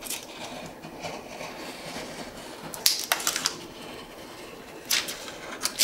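Craft knife scratching as it cuts away a laminate sheet along the edge of a glass cutting board on a cutting mat, with a few sharp clicks and scrapes about three seconds in and again near the end.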